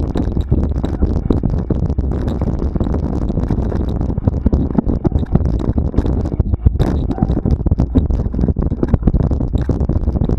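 Wind buffeting the microphone with a steady low rumble, and frequent irregular knocks and rattles from a camera carried over a rough trail, loudest about two-thirds of the way through.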